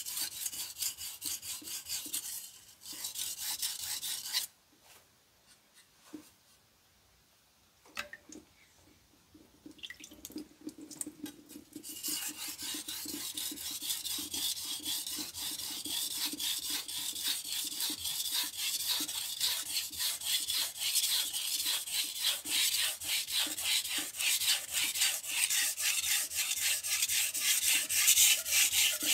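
Chef's knife blade scraping back and forth across a whetstone. Two short runs of strokes, a pause of a few seconds, then from about twelve seconds in a long run of quick strokes, several a second.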